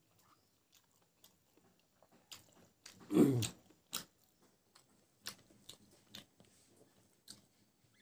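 Close-miked eating by hand: a loud, short mouth sound falling in pitch as a handful of rice and greens goes into the mouth about three seconds in, then chewing with scattered wet mouth clicks and smacks.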